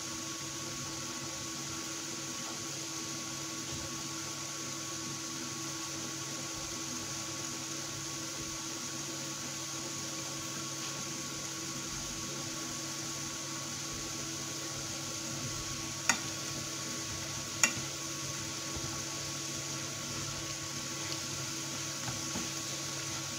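Potato sticks deep-frying in a small pan of hot oil: a steady sizzle and bubbling, over the steady hum of an induction cooktop. Two sharp clicks come about a second and a half apart, some two thirds of the way through.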